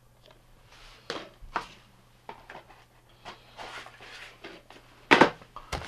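Plastic DVD case and cardboard packaging being handled: scattered light clicks and rustles, with a sharp knock about five seconds in.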